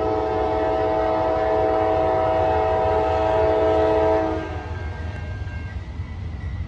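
Diesel freight locomotive's air horn sounding one long multi-note chord, held for about four seconds and then cut off, over the low rumble of the approaching train. This is the locomotive warning ahead of the grade crossing.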